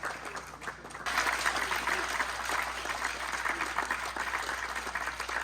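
A crowd applauding, the clapping getting suddenly louder about a second in.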